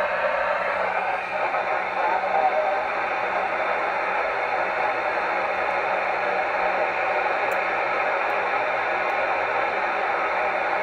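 Steady hiss of FM radio static from a receiver's speaker, tuned to the AO-91 amateur satellite's downlink with no station transmitting.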